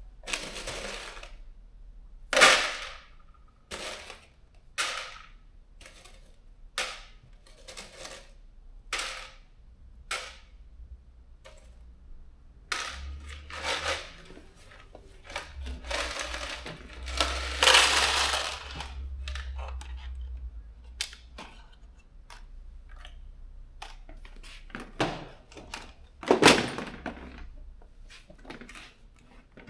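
Loose steel bolts and washers clinking and clattering as they are handled and dropped into containers, in irregular bursts, some brief and some lasting about a second.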